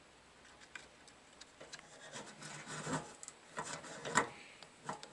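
Metal control-board bracket scraping and clicking as it is worked into place in the side of a Suburban SF-30 RV furnace, with several sharp knocks, the loudest about three and four seconds in.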